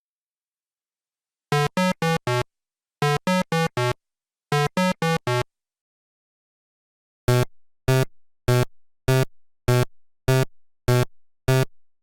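Electronic synthesizer beeps like a ringtone: three quick runs of four short notes each, then eight single notes about half a second apart, each fading away.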